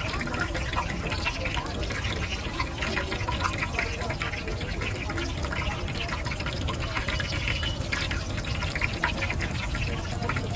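Battered pumpkin flowers deep-frying in a wok of hot oil: steady sizzling with dense crackling, over a low steady rumble.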